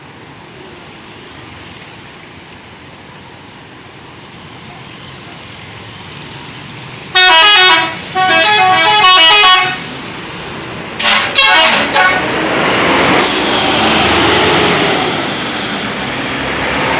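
Telolet horn, the multi-tone musical horn used on Indonesian buses, playing a short tune of stepped notes for about two and a half seconds, then three quick toots. A loud hissing rush follows and lasts to the end.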